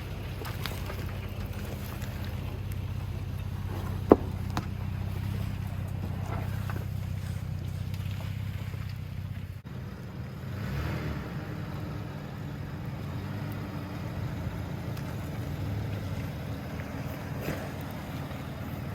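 Off-road vehicle driving along, its engine a steady low drone with road noise, and one sharp knock about four seconds in.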